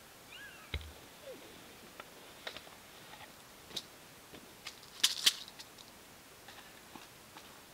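Hands handling small camping gear taken from a backpack: scattered light clicks and rustles, with a louder cluster of sharp clicks about five seconds in. A bird chirps briefly near the start.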